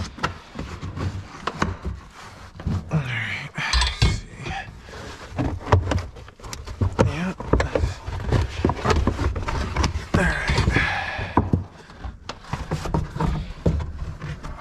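Carpeted trunk side trim liner of a Dodge Challenger being pulled back and worked loose by hand: rustling and scraping, with many knocks and thunks against the body panels.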